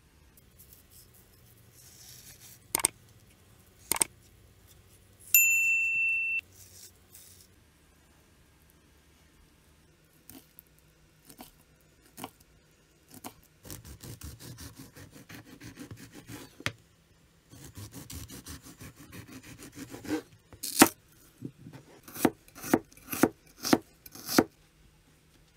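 A chef's knife slicing through a salted herring fillet on a plastic cutting board, first in a few separate cuts and then in quick runs of strokes. Near the end it slices an onion, with about eight sharp knocks of the blade on the board. About five seconds in, a steady beep lasts about a second.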